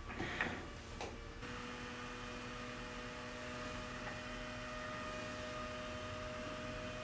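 A couple of short knocks, then about a second and a half in a small electric motor starts and runs with a steady hum.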